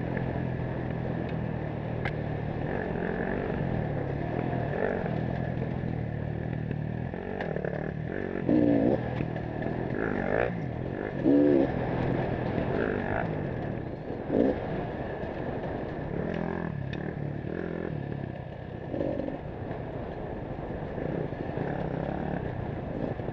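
Dirt bike engine running while being ridden along a rough trail, the revs rising and falling as the rider works the throttle, with louder surges of revving about 8, 10, 11 and 14 seconds in.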